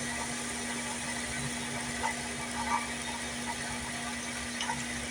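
Shop Fox mini lathe running, a steady motor hum with light irregular ticks, while turning a taper with the tool on its compound slide.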